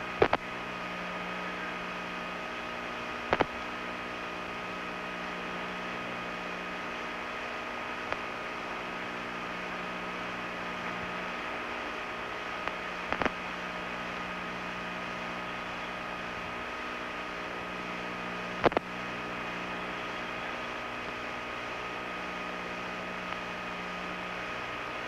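Steady fan hum with hiss and several fixed tones, as from cabin ventilation fans. Four sharp clicks break through it, about a second in, at three seconds, midway and at about three quarters of the way.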